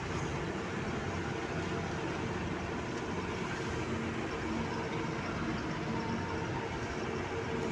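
Tata Signa tipper truck's diesel engine and road noise heard inside the cab while cruising at a steady speed: a constant drone with no change in pitch.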